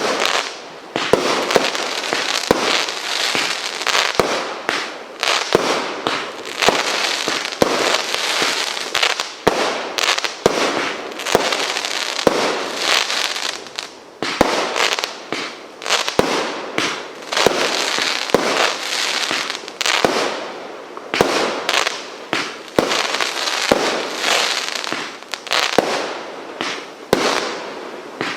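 Multi-shot firework, Plasma from the Cube Connection pack, firing a continuous barrage of sharp bangs and crackling bursts, several a second, with brief lulls about 14 and 20 seconds in.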